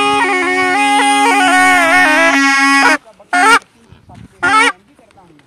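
Snake charmer's been (gourd pungi) playing a reedy melody over a steady drone; it stops abruptly about three seconds in, followed by two short honking blasts about a second apart.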